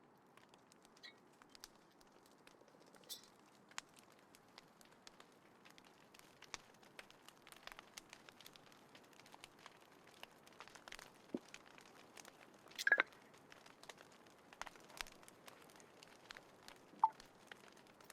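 Small wood fire crackling in a compact folding fire stand: faint, irregular snaps and clicks over a low hiss, with a couple of louder pops about two-thirds of the way through and near the end.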